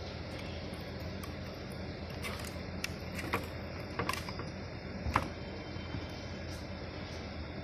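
A handful of light, sharp clicks and knocks, about five spread through the middle, as a metal-framed glass gate lamp is handled and turned, over steady background noise.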